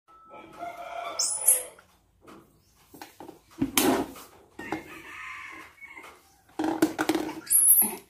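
A series of animal calls, some with shrill high-pitched bits, and a sharp knock a little under four seconds in.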